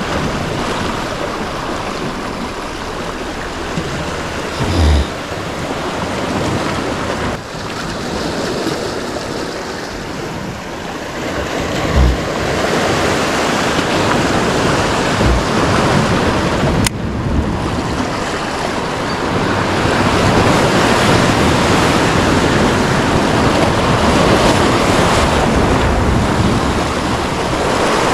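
Sea surf washing and breaking against the rocks below, steady throughout and a little louder in the second half, with a few brief wind buffets on the microphone.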